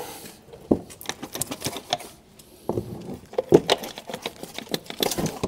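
Irregular metallic clicks and knocks as a car driveshaft is tugged and worked by hand to pull it out of the gearbox. The joint comes apart instead of the shaft sliding free.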